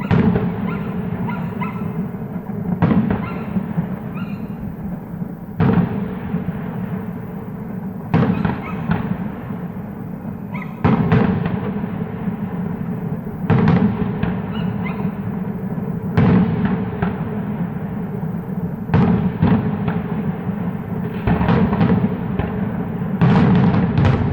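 Aerial fireworks shells bursting one after another, about every two and a half to three seconds, each a sharp boom that rolls off into an echoing rumble with crackling sparkles.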